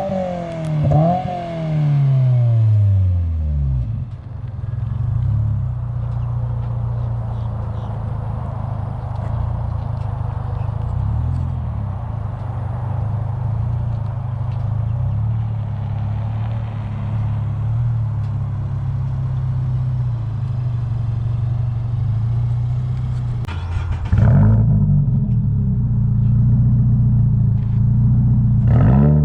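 Toyota GR86's 2.4-litre flat-four engine through an aftermarket exhaust. The revs fall away over the first few seconds, then it runs steadily. Near the end it is revved up again, louder, with two quick rises and falls in pitch.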